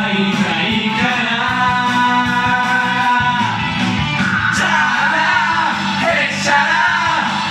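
Man singing through a karaoke microphone along to a karaoke machine's backing track of an anime theme song.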